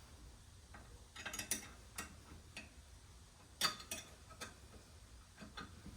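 Scattered metallic clicks and taps of the grinder's platen attachment and its bolts being loosened, slid and adjusted by hand. There is a small cluster of them a little over a second in, and a sharper knock about three and a half seconds in.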